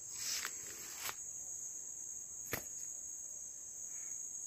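Steady high-pitched drone of forest insects, with a brief rustle near the start and two sharp clicks, about a second in and midway, as a wire bird trap cage is handled.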